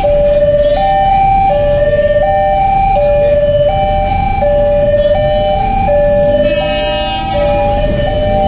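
Electronic level-crossing warning alarm sounding a steady two-tone pattern, a high and a low note alternating about every three-quarters of a second, over a low rumble of road traffic. About seven seconds in, a harsher blast cuts across it for under a second.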